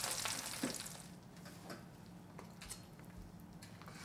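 Faint sizzle from the hot roasting pan dying away in the first second, then a few soft clicks and ticks as the roast chicken is lifted off the rack with a wooden spatula. A low steady hum runs underneath.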